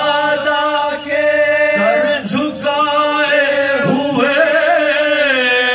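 Men's voices chanting a soz, an unaccompanied Urdu elegy, in long held notes that waver and glide between pitches.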